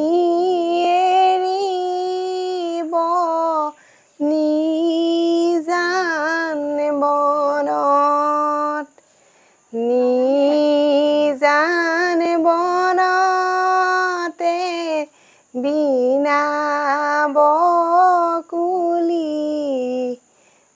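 A woman singing a sorrowful Assamese biyanam (traditional wedding song) unaccompanied, in long drawn-out phrases with wavering held notes, broken by short pauses for breath.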